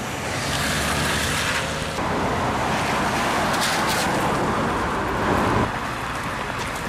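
Cars driving past on a street: a steady wash of tyre and engine noise, with wind on the microphone. It drops to a quieter level abruptly about a second before the end.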